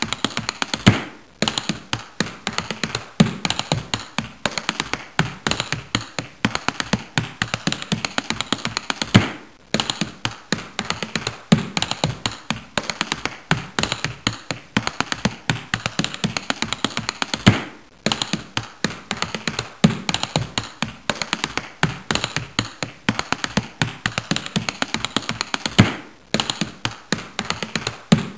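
Rapid, dry tapping and clicking in a driving repeated rhythm, with a heavier low knock every couple of seconds. The pattern breaks off briefly about every eight seconds and starts over, like a looped percussion track.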